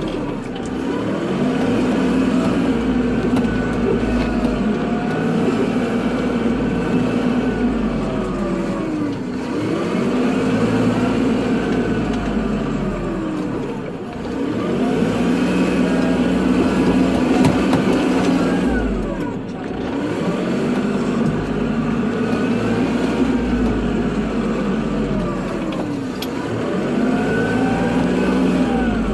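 Kubota tractor's diesel engine working while plowing snow. It revs up and down over and over, its pitch rising and falling every five seconds or so.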